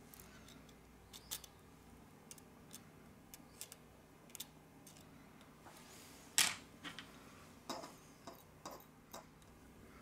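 Light, irregular clicks and taps of a small hand tool against the parts of an opened smartphone during reassembly, with the loudest click about six seconds in.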